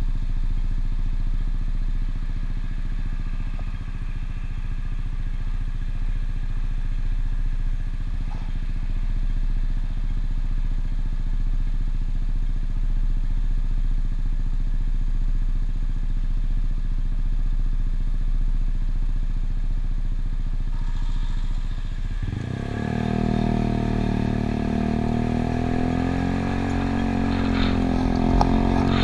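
Yamaha Cygnus scooter's single-cylinder engine idling steadily while stopped. After about twenty seconds it revs up with a rising note as the scooter pulls away and accelerates.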